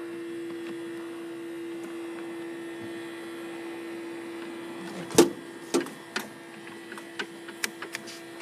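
A steady electrical hum from a forklift with its key switched on but failing to start. Sharp clicks from the key switch and controls come about five seconds in, the loudest first, then several lighter ones.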